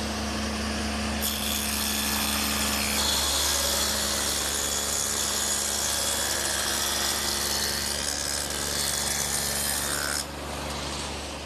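Table saw fitted with a dado head cutter running with a steady hum. From about a second in it cuts a groove a little over 1/4 inch wide along a wooden door-frame piece. About ten seconds in the cut ends and the blade spins free.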